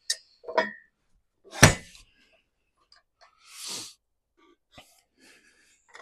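Rough-sawn white pine boards being handled and stood on edge on a sawmill bed. There is one sharp wooden knock about a second and a half in, a few light clicks, and a brief scrape around the middle.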